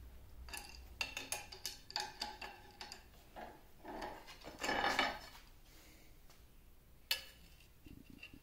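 Adjustable wrench working the end of a lathe's threaded steel shaft: a run of metallic clicks and clinks, a longer, louder clatter about five seconds in, then one sharp click about seven seconds in.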